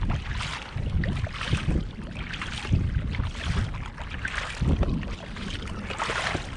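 Kayak paddle strokes splashing in the sea water, about one stroke a second, over a steady low rumble of wind on the microphone.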